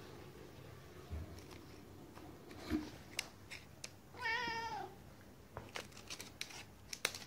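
A long-haired grey tabby cat gives a single short, wavering meow about four seconds in. A few light knocks and clicks come before and after it.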